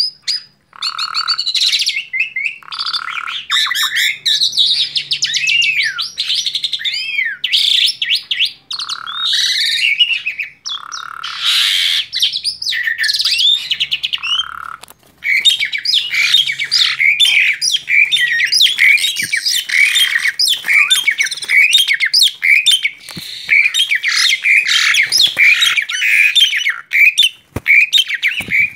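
Male Asian pied starling (jalak suren) singing in an agitated, excited state: loud chattering whistles, sliding notes and harsh rasping calls. The first half comes in separate phrases with short pauses; from about halfway it runs on as one unbroken stream of chatter.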